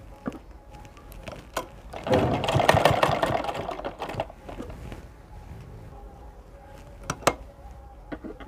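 Sewing machine stitching pleats into gathered fabric in one run of rapid stitches lasting about two seconds, starting about two seconds in. A few single clicks come before and after the run.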